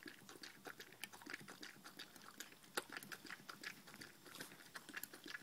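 A dog lapping milk from a plastic bowl: faint, quick wet clicks of the tongue, several a second, with no pause.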